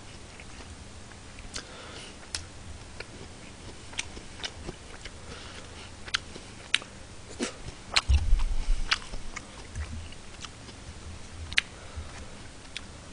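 A person chewing and biting food from a pork cutlet lunch box close to a microphone, with sharp clicks now and then from chopsticks on the plastic tray. A low thump about eight seconds in is the loudest sound.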